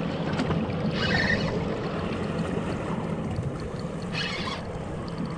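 Steady low hum of the boat idling, with water washing along the hull and two short hissing splashes, one about a second in and one near the four-second mark.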